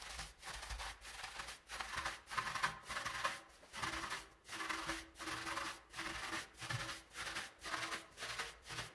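Soft wheel brush scrubbing a soapy alloy wheel, rubbing back and forth between the spokes in even strokes about twice a second.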